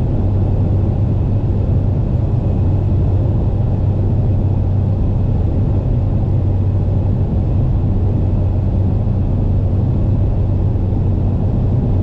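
Inside a car's cabin while driving at speed: a steady low engine drone under tyre and wind noise, holding even throughout.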